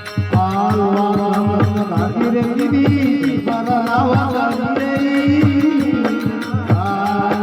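Rajasthani desi bhajan music: a steady drum beat under a long held melody line that bends in pitch, starting just after the beat.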